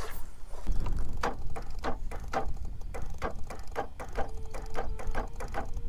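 A run of irregular mechanical clicks and ticks, two or three a second, over a low rumble; a faint steady hum comes in about four seconds in.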